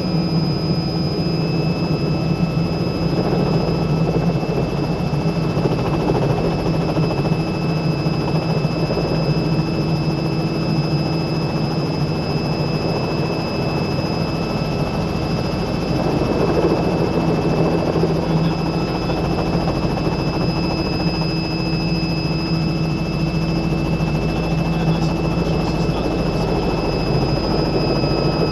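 Robinson R66 helicopter's Rolls-Royce RR300 turboshaft and main rotor running as it hover-taxis, heard from inside the cockpit. A steady turbine whine rides over the rotor's drone.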